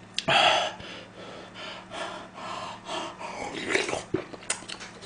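A man eating hot food close to the microphone: a loud breath just after the start, then chewing and short breaths through the mouthful.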